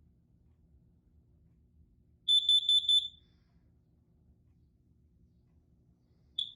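Kidde carbon monoxide alarm sounding: a burst of four quick, loud, high-pitched beeps, then a single beep near the end. The four-beep pattern is the standard carbon monoxide alarm signal.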